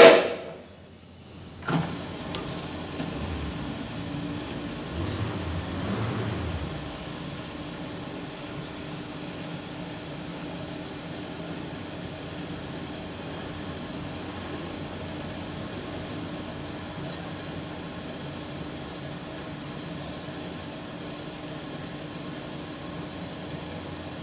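Horizontal metal-cutting band saw: a loud knock at the very start, a sharp click about two seconds in, then the saw runs with a steady hum.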